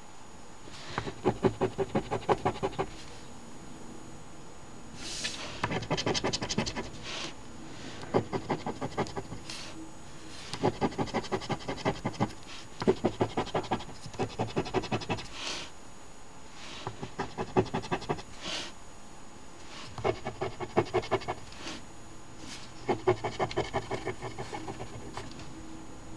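Coin scraping the latex coating off a paper scratch-off lottery ticket. It comes in short bursts of rapid back-and-forth strokes, each a second or two long, with pauses between them.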